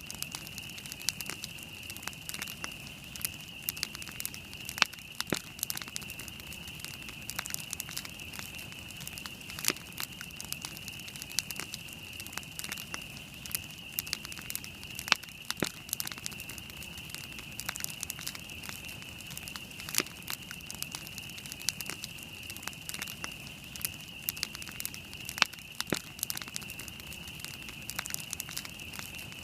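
Wood campfire burning and crackling, with sharp pops at irregular intervals, several a second, over a steady high-pitched whine.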